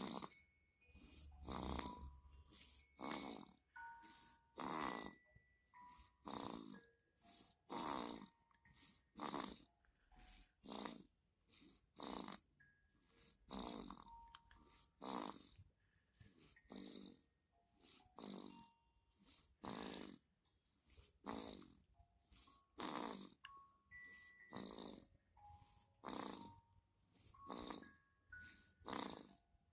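Rhythmic snoring, one breathy snore about every second and a half. Soft chime-like notes play in between.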